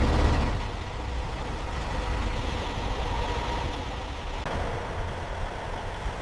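Heavy machinery engine running with a steady rumble, loudest at the start and then even.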